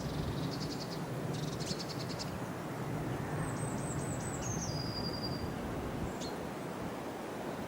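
Blue tit calling: two quick rattling trills, then a run of thin high notes stepping down into a lower held note, and one short call a little later, over a steady low background rumble.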